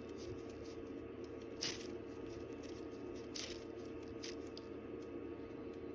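Three short, faint clicks, about a second and a half, three and a half and four seconds in, from working the crown of a Seiko 56-series watch to quick-set the date, over a steady low hum.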